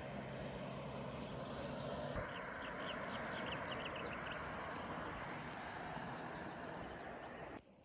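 Outdoor ambience: a steady rushing noise with a run of short, quick bird chirps in the middle and a few higher chirps later, cut off abruptly just before the end.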